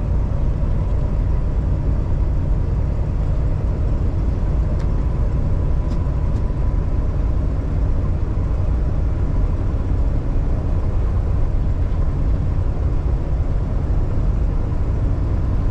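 Paccar MX13 diesel engine of a Kenworth T680 semi truck heard from inside the cab, running steadily with road noise on a downhill stretch, with a faint steady whine above the rumble.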